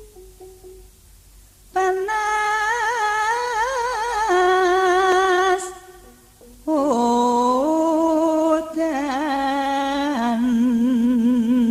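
A singer's voice holding two long, wavering, melismatic phrases in a Javanese calung Banyumasan song. The first phrase starts about two seconds in after a quiet opening. A short break follows, then the second phrase enters at a lower pitch.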